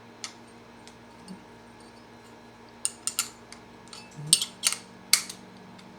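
Scattered sharp metallic clicks and clinks as the metal parts of an HVLP spray gun are handled and tightened, one near the start and a cluster of six or so between about three and five and a half seconds in.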